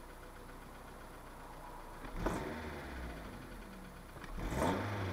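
Mitsubishi 4G94 2.0 GDI four-cylinder petrol engine idling, heard from inside the cabin, then revved in two quick throttle blips, about two seconds in and near the end, its pitch rising and falling back to idle each time. It picks up with no delay, the drive-by-wire throttle responding normally after its throttle-position fault.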